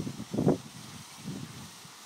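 Wind buffeting the microphone in irregular gusts, strongest at the start and again about half a second in, then settling to a low steady rush.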